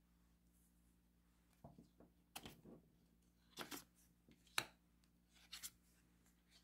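Tarot cards being handled and laid down on a wooden table: a string of faint, irregular taps and flicks of card stock, beginning about a second and a half in.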